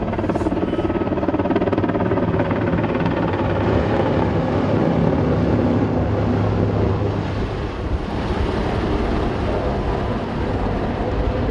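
Super Puma military twin-turbine helicopter flying low and close overhead in an aerobatic display, its main rotor and turbines making a loud, steady noise.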